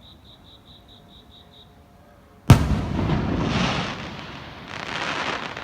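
An aerial firework shell bursts with a single sharp, loud bang about two and a half seconds in, followed by a long hissing crackle that fades and then swells again near the end.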